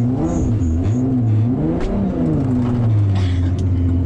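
Engine of a BMW E46 touring drift car, built to about 700–800 hp, heard from inside its cabin. The revs rise and fall several times, then hold steady about three seconds in.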